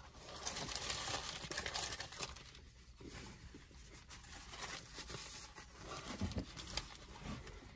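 Paper burger wrapper crinkling and rustling as a cheeseburger is handled and eaten, in spells, loudest in the first two seconds or so.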